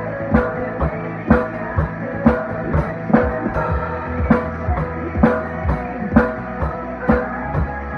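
A rock song with guitar and a steady drum beat, strong hits landing about once a second, with a snare drum played along with sticks.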